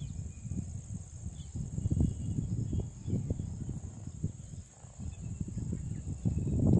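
Wind buffeting the microphone in uneven gusts, over a steady high-pitched drone of crickets or other insects.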